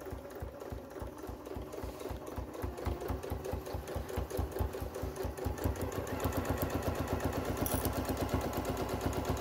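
Domestic electric sewing machine stitching through several layers of thick quilted fabric, its needle strokes quickening from a slow start to a fast, steady run.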